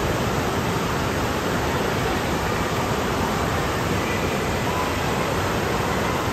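Steady, even rushing noise of an indoor water park hall: running and splashing water echoing through the building.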